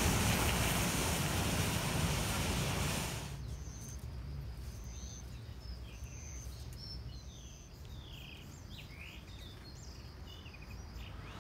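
A city bus pulling away, a loud rush of engine and road noise that cuts off abruptly about three seconds in. Then quiet outdoor background with birds chirping in short, falling calls.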